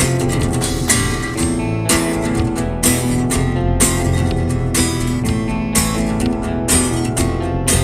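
Band music without vocals: strummed acoustic guitar over bass and drums, with a steady beat.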